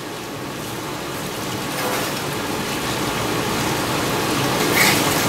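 Food sizzling on a flat-top griddle, banana slices frying in cinnamon sugar beside a crepe: a steady hiss that grows louder, with a short sharper sound near the end.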